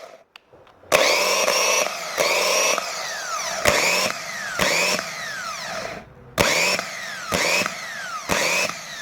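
Freshly cleaned and repaired car starter motor spun on the bench in short repeated bursts of current, about one a second: each burst whines up in pitch and then winds down with a falling whine, with a short pause near the middle. It spins freely, the sign of a starter that now works.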